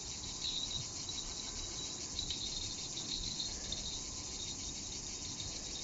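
A steady, high-pitched chorus of insects chirring with a fine, rapid pulse.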